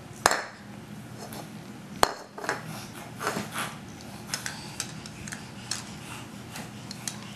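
Hard plastic toys, a toy tea cup and a plastic bowling pin, knocking and clicking together as a toddler handles them: two sharper knocks near the start and about two seconds in, then a run of lighter taps and clicks.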